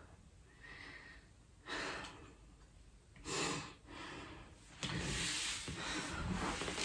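A man breathing hard, out of breath after a set of push-ups: a few heavy, noisy breaths a second or two apart, with a longer stretch of breathing near the end.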